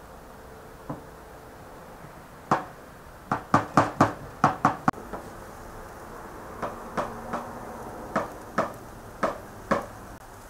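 A series of sharp knocks: a quick run of about eight in the middle, then a slower run of about seven more spaced knocks.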